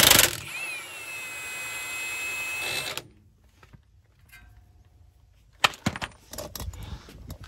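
Milwaukee cordless impact wrench with a 24 mm socket hammering the nut off the tie rod, then spinning freely with a steady whine that stops abruptly about three seconds in. A few sharp metallic clicks of tools being handled come near the end.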